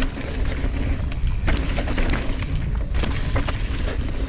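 Mountain bike riding down a rough, rocky trail: a steady low rumble from the tyres and bike over the ground, broken by frequent sharp knocks and rattles.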